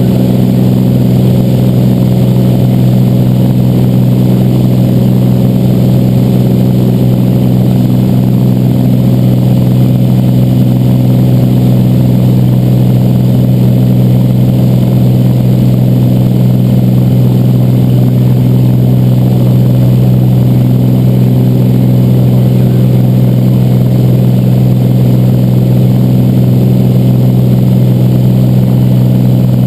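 Cessna 206's six-cylinder piston engine and propeller running steadily in flight, heard as a loud, even drone from inside the cockpit.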